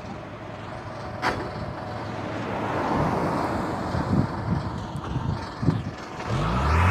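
Engine of a water tanker truck running, with a rushing noise that builds in the middle and a low engine note rising in pitch near the end.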